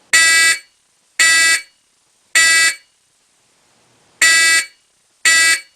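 Simplex 4051 fire alarm horn sounding in code 3, the temporal-three pattern: three loud half-second blasts about a second apart, a pause of about a second and a half, then the first two blasts of the next group. A shrill, buzzy tone, rated about 110 decibels at 10 feet.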